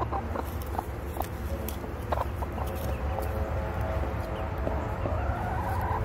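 Chickens clucking in repeated short calls, with one longer drawn-out call near the end.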